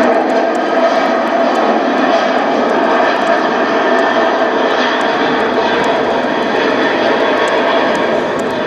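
Aircraft engine noise from a plane passing overhead, a loud steady rush, played back over a hall's loudspeakers.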